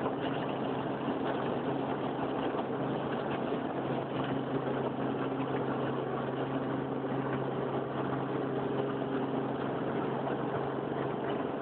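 Helicopter running with a steady, unchanging drone.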